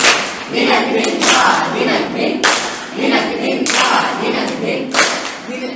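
Patriotic Hindi song for a group dance: voices singing together over a sharp clap-like beat that falls about every second and a quarter.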